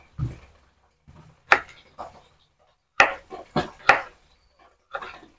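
Kitchen knife chopping chayote on a wooden cutting board: about seven separate chops at an uneven pace.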